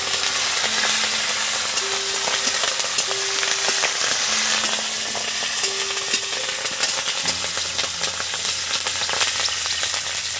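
Curry leaves, mustard seeds and other whole spices sizzling in hot mustard oil in a kadai, a steady hiss dotted with many sharp crackling pops.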